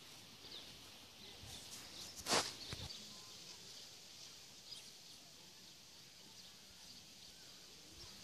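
Quiet outdoor ambience with faint, scattered bird chirps, and one short burst of noise a little over two seconds in.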